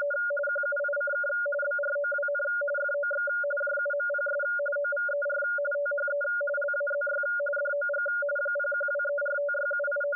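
Morse code beeping: two keyed tones at once, a lower tone and a higher one, each sending rapid uneven runs of short and long beeps.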